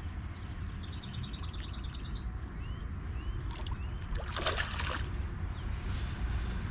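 A small carp splashing at the surface for about a second, some four seconds in, as it is played in on the line. Before it come a quick run of light ticks and a few short chirps.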